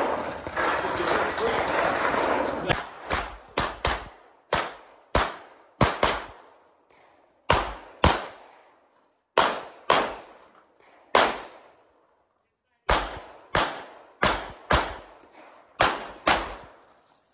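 Pistol fired in rapid strings, mostly quick pairs of shots with short pauses between, typical of two shots per target on a practical-shooting stage; each shot trails off with a brief echo. A rushing noise fills the first few seconds before the first shot, about three seconds in.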